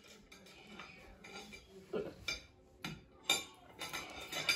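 Hard candy canes tapping and clinking against plates and each other, a few light clicks about two to three seconds in.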